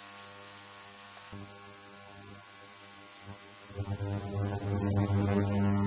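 Kemet Gem 25-litre ultrasonic cleaner running, its tank of cleaning fluid giving a steady electrical hum with a high hiss above it. The hum grows louder about four seconds in.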